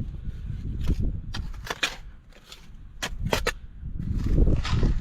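Shovel digging in soil: a series of sharp scrapes and knocks as the blade cuts and strikes the dirt, with a low rumble underneath.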